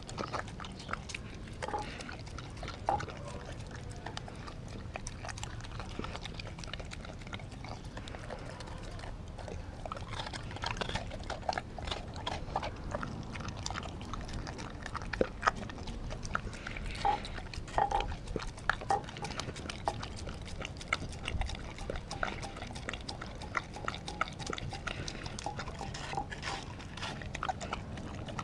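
Australian Kelpie eating from a glass bowl: wet chewing and licking with a steady run of quick clicks, which gets busier and louder about a third of the way in.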